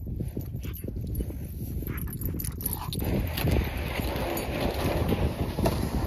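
Wind buffeting the microphone, a low rumble that turns brighter and hissier about halfway through.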